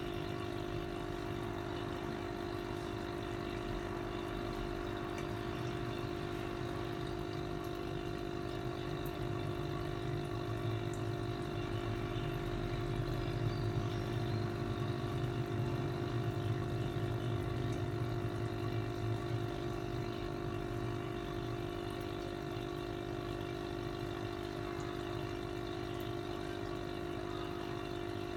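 Aquarium air pump humming steadily, with water bubbling in a goldfish bowl where air rises from the airline tube; the low rumble swells a little in the middle.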